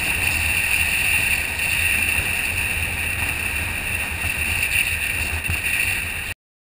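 Motorcycle riding along at steady speed, heard from a camera on the bike: a steady rush of wind over the microphone over a low engine and road rumble. It cuts off suddenly near the end.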